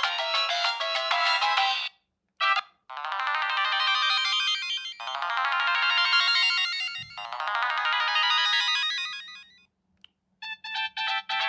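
Siemens C65 mobile phone playing its built-in ringtones through its small speaker, with no bass. One tune stops about two seconds in, a short blip follows, then a longer dense electronic tone sequence runs for about six and a half seconds, and a new rhythmic tune starts near the end.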